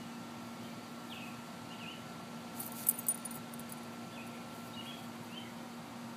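A quick couple of light metallic clinks about three seconds in, the leash's metal clasp and ring on the dog's harness jingling as it moves, over a steady faint hum with a few short high chirps.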